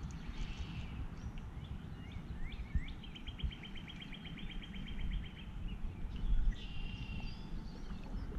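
Small birds calling: scattered short chirps, and about three seconds in a rapid trill of even repeated notes lasting a couple of seconds, over a steady low rumble.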